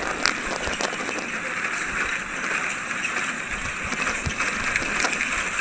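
Safari vehicle travelling along a rough dirt track: a steady rushing noise with scattered short knocks and clicks from the bumpy ride.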